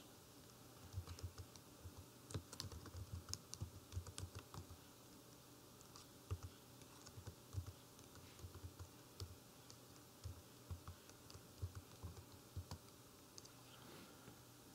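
Faint typing on a computer keyboard: irregular keystrokes starting about a second in and stopping shortly before the end.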